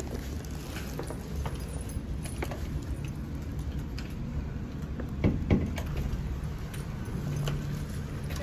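Keys jangling, with a few sharp clicks about five seconds in, over a steady low rumble.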